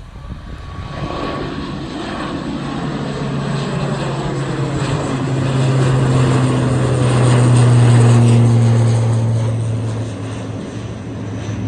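Airliner's engines running loud as the aircraft passes close. The roar swells to its loudest about eight seconds in, carrying a strong low steady hum, then eases off.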